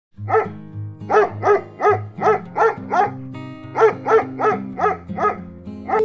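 Dog barking, about a dozen short barks in quick succession, over background music.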